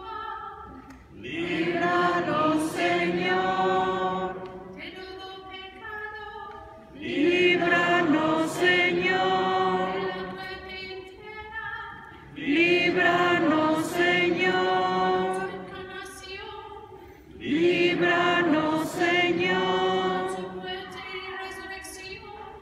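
Unaccompanied sung chant from a congregation of mixed voices in a church, in call-and-response. Short, quieter solo lines alternate with longer, louder group responses about every five seconds, in the manner of a sung litany.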